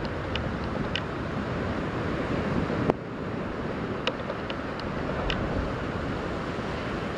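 Wind buffeting the camera microphone, a steady rushing noise over the lapping of harbour water. A few faint short ticks, and one sharp knock about three seconds in.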